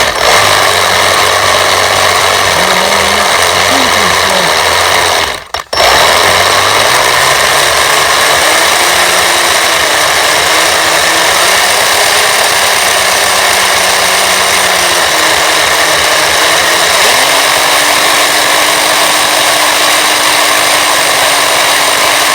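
RC snowmobile's battery-electric drivetrain running with the track turning: a loud, steady gear-and-track whir whose pitch rises and falls with the throttle. It cuts out briefly about five seconds in, then settles to a steady speed near the end. The gears are running straight, and it sounds good.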